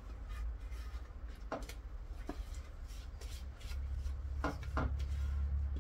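Kitchen handling while working a mixture: light rubbing and a few soft knocks, over a low steady hum that grows louder about two-thirds of the way in.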